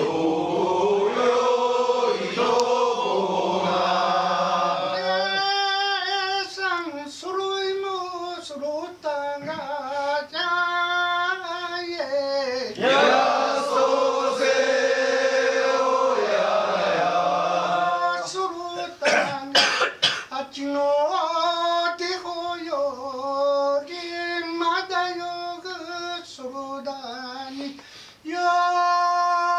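Voices singing kiyari, a Japanese traditional work song, in long held, wavering phrases. A few sharp clicks or knocks come about two-thirds of the way in.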